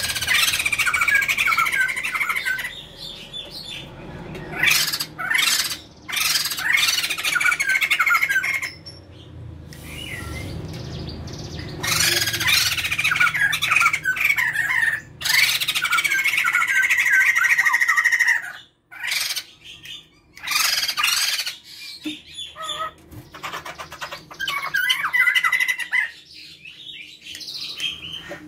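A male and female Sumatran laughingthrush calling loudly together in chattering, squawking bouts. Each bout lasts one to several seconds, with short lulls between, and the longest runs from about twelve to eighteen seconds in.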